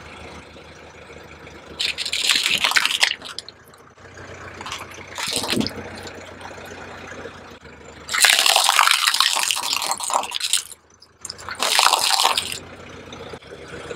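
Objects being crushed under a car tyre: four separate bursts of crushing noise, the longest starting about eight seconds in. A car engine idles underneath and drops out about eight seconds in.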